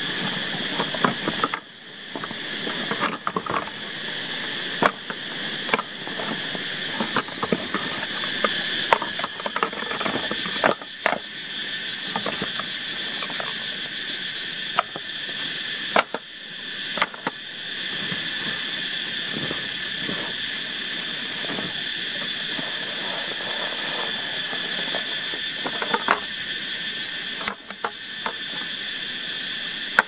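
Rustling and scattered knocks and clicks of a backpack and hollow blue plastic pipe pieces being handled and laid on a foam mat, over a steady high insect drone and the hiss of a stream.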